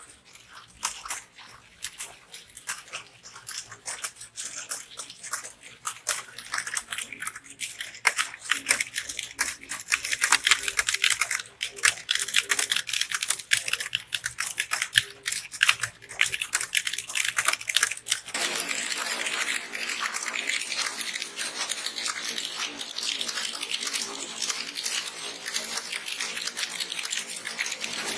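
Keyboard typing: a fast, uneven run of key clicks that gets louder partway through, then turns into a denser, steadier clatter about two-thirds of the way in.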